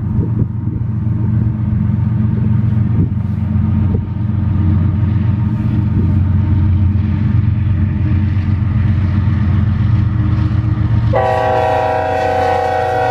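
Two GE diesel freight locomotives, a CP ES44AC leading and a UP AC45CCTE trailing, running under power as they approach with a steady low engine drone. About 11 s in, the lead locomotive's multi-chime air horn sounds one blast of about two seconds.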